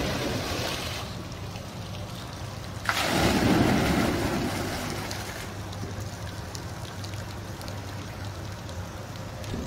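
Water dumped from the tipping buckets of a 1960s kinetic bucket fountain crashing into its basin. A gush fades in the first second, another starts suddenly about three seconds in and dies away over a couple of seconds, and a steady trickle and wash of water runs in between.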